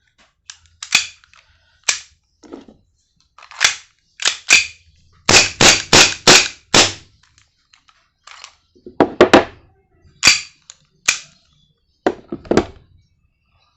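A KJW 1911 airsoft pistol being worked by hand after its slide is assembled, giving a series of sharp clacks. There is a quick run of five, about three a second, near the middle.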